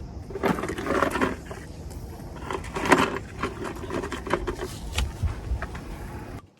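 Metal brake parts being handled: irregular clinks, knocks and scraping as the front brake caliper and its disc pads are worked on. The sound cuts off suddenly near the end.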